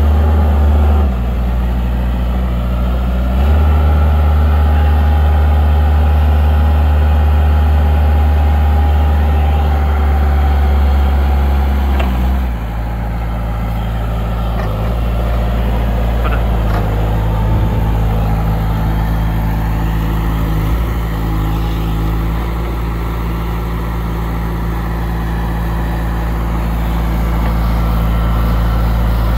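Diesel engine of a 1991 Steinbock Boss RH30 2.5-tonne forklift running as the truck drives around. The engine speed steps up and down a couple of times in the first few seconds, then drops about twelve seconds in and runs steadily at the lower speed.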